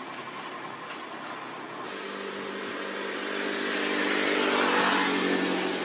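A motor vehicle engine passing: its running sound swells to its loudest about five seconds in and then starts to fade, over a steady background hiss.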